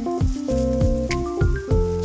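Background music: a melody of held notes over a bass line, with a light drum hit about once a second.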